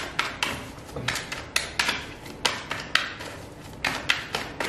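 A deck of tarot cards shuffled by hand: a quick, irregular run of sharp card snaps and slaps, several a second.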